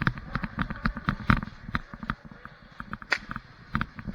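Airsoft guns firing: irregular sharp cracks and snaps, several a second, some louder and nearer than others.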